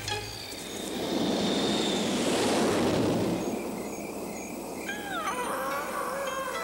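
A rushing noise that swells and fades, then an animal's long wavering cry that slides up and down in pitch, starting about five seconds in.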